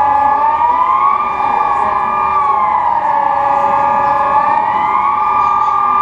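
Several civil defence sirens sounding together, each giving a steady wailing tone that rises and falls over a few seconds, out of step with one another. This is the Swiss 'general alarm' signal, sounded here as a nationwide siren test.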